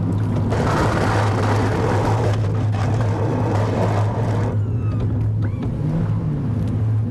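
Heavy-duty pickup truck running steadily while plowing snow, a low, even drone. For about four seconds, starting half a second in, a broad rushing noise rides over it.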